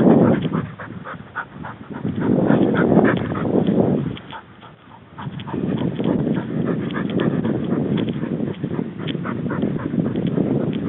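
A hunting dog making noises close by, in uneven stretches mixed with many small clicks and rustles, with a short lull about four seconds in.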